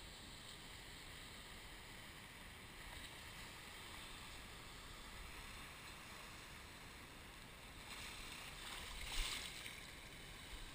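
Shallow sea water washing faintly around a wader standing in the surf, with a wave surging past and swelling louder about a second before the end.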